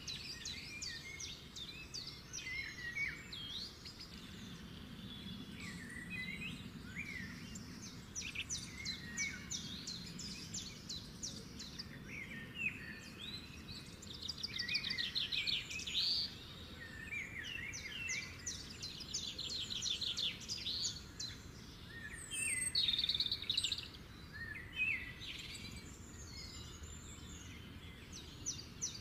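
Several small birds chirping and calling, with repeated bursts of fast trills, over a steady low background noise.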